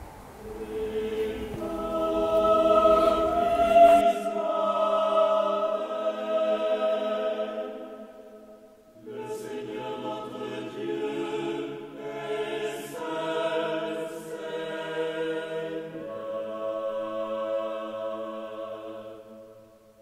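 A choir singing long held notes in harmony, in phrases with a short break about nine seconds in, fading out at the end.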